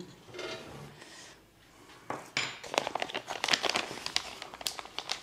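Resealable packet of gum arabic powder crinkling as it is handled and folded shut, starting about two seconds in.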